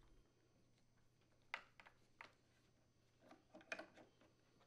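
Near silence with a few faint light clicks and rustles, the clearest about a second and a half in: a plastic freezer door lower cam being slid over a wire harness and water tube.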